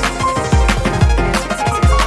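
Instrumental music without vocals: a drum beat with regular deep kick hits and sharp snare hits under short, bright melodic notes.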